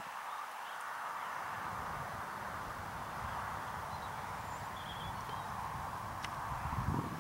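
Open-field outdoor ambience: a steady hiss with an irregular low wind rumble on the microphone that swells just before the end, and a few faint bird chirps about halfway through.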